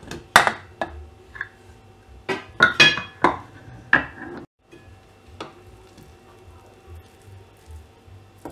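Metal clinks and clanks as the weight and aluminium lid of a Prestige pressure cooker are taken off: several sharp knocks, one with a brief metallic ring, over the first four seconds or so. After that only a few faint soft taps remain.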